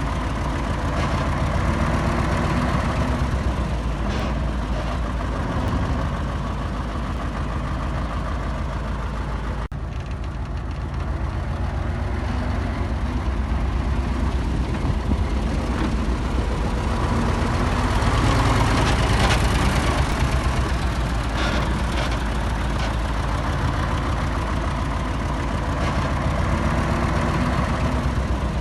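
Heavy diesel engine of earthmoving machinery running steadily. It grows louder for a few seconds about two-thirds of the way through, with a momentary drop about a third of the way in.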